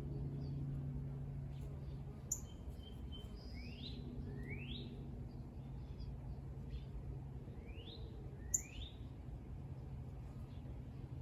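Songbird calling with rising, whistled notes in two pairs about four seconds apart, with a few short, high chirps, over a steady low hum.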